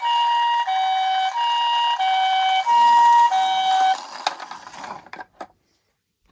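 Toy ambulance's electronic two-tone siren, high and low notes alternating about every two-thirds of a second, stopping about four seconds in. It is followed by a few light knocks as the toy is handled.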